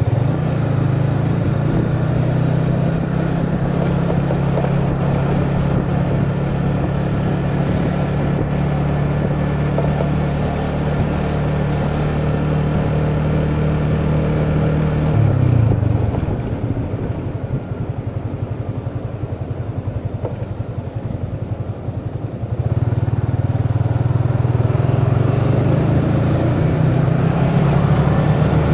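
Motorcycle engine running at a steady cruise over constant riding noise. About halfway through it eases off and its drone fades for several seconds, then it pulls again, the pitch rising slightly near the end.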